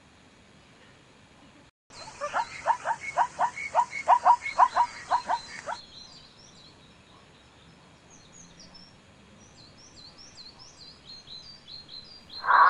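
An animal calling in a rapid series of about a dozen short, pitched calls, roughly three a second for about four seconds, then stopping abruptly. Faint high chirping follows.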